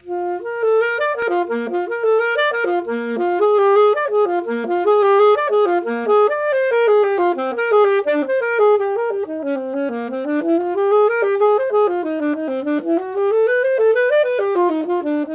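Unaccompanied saxophone playing a quick melody of running notes that rise and fall in pitch.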